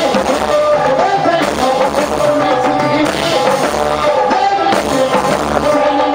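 Moroccan chaabi music played live: a pair of clay drums struck with sticks and a hand-played frame drum keep a quick beat under a melody line.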